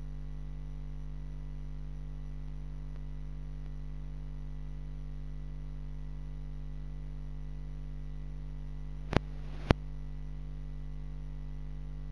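Steady electrical mains hum from a sound system, with two sharp clicks about half a second apart late on.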